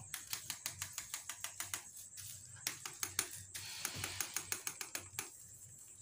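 Thin plastic kite sheeting crackling in quick, irregular runs of small clicks as it is pressed flat by hand and tacked down with a soldering iron.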